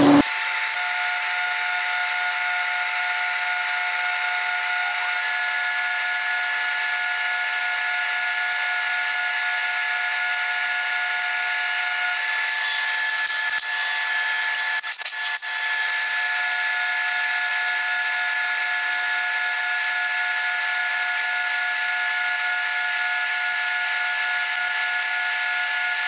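TIG welding arc on a steel spindle: a steady hiss carrying a faint fixed whine. It breaks off briefly about fifteen seconds in, with a couple of clicks, then carries on.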